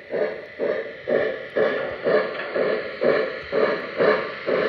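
Lionel L1 Mikado O-gauge model steam locomotive's electronic sound system giving a steady steam chuff, about two chuffs a second, while the engine runs.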